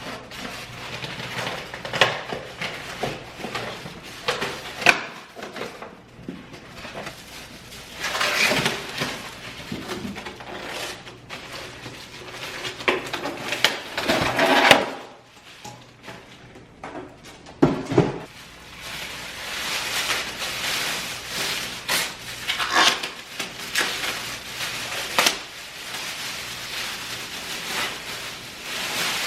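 Irregular clatter and knocks of household items being handled and set down, with rustling in between.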